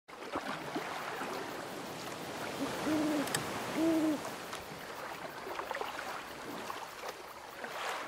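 Two short, low hoots about a second apart, over a steady background hiss.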